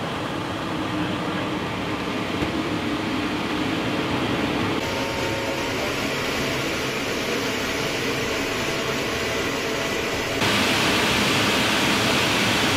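Homemade butane jet engine, fed air by an electric leaf blower, running as a steady loud rushing noise. It changes abruptly twice and is louder and hissier near the end.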